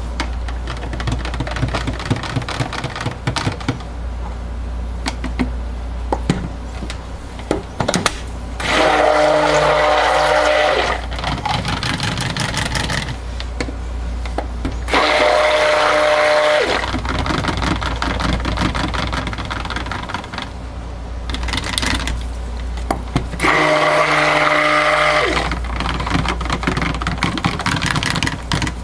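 Handheld stick blender run in short bursts of about two seconds each in pitchers of soap batter, a steady motor whine three times with a fourth burst starting at the very end. This is blending the coloured portions of raw soap batter. Between the bursts there are knocks and clicks.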